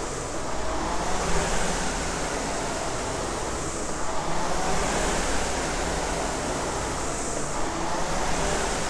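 Concept2 RowErg rowing machine's air flywheel whooshing, surging and easing about every three to four seconds, once per stroke at a slow stroke rate.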